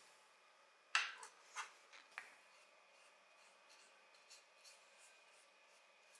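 Small plastic model-car parts handled on a wooden tabletop: one sharp click about a second in, two lighter clicks over the next second, then a few faint ticks.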